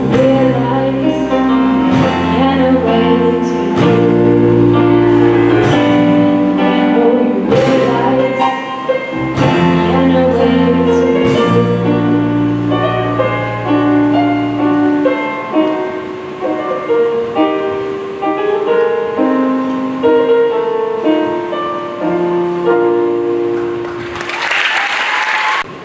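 Live school band playing a slow song: a female singer over electric bass, drum kit and keyboard. The bass and drums drop out about halfway, leaving voice and keyboard to close the song, and a short burst of applause follows near the end.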